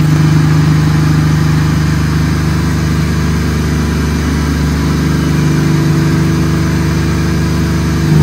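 Chevrolet pickup's 4.8-liter LS V8, fitted with a Truck Norris camshaft, headers and a single 3-inch exhaust, running at a steady engine speed on a chassis dyno. The engine note holds constant without revving.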